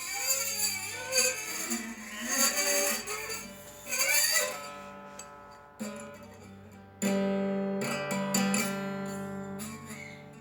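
Guitar notes swooping up and down in pitch, played to imitate a Formula 1 car's engine. About seven seconds in, a loud chord is struck and rings out, fading slowly.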